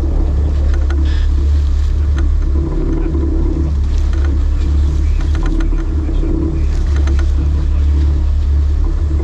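Sportfishing boat's engines running with a steady low rumble while the boat works a hooked blue marlin alongside.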